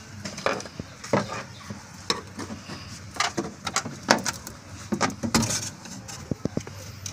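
Irregular clicks and knocks of tools and metal parts being handled during work on the car, over a low steady hum.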